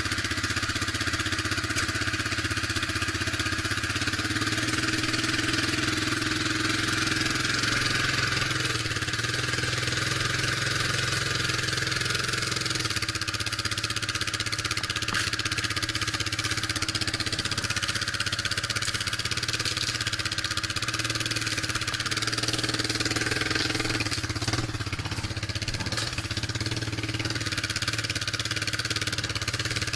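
Off-road vehicle's engine running steadily while crawling over rocky ground.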